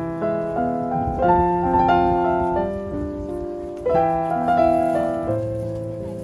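Background piano music: a slow melody of single notes and chords over low bass notes, each struck and left to ring and fade.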